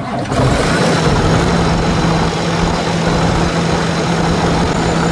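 Cummins ISX15 inline-six diesel engine running just after start-up: a loud, steady engine noise with a constant low hum coming in under a second in. The cooling system is pressurizing, which the mechanic puts down to either the air compressor or a head gasket leak.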